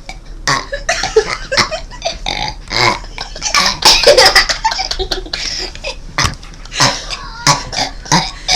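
A five-year-old child burping again and again in quick, irregular succession, with laughter mixed in.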